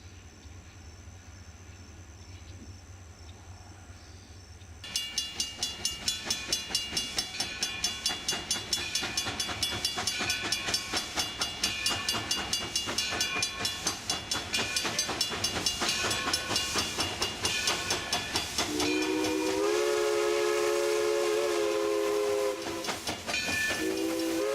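Alco 2-8-0 steam locomotive working hard: after a few seconds of faint outdoor background, a steady beat of about three chuffs a second with hissing steam starts suddenly. About three-quarters of the way in, its steam whistle sounds a long blast of several notes at once, stops briefly, then blows again near the end.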